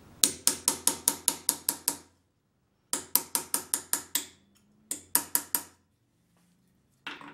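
A small hammer tapping a pin punch, peening the slotted edge of a metal swivel pad over the ball end of a machinist's screw jack. The taps come quickly, about five a second, each with a short metallic ring. They fall in three runs with brief pauses between, and a single tap comes near the end.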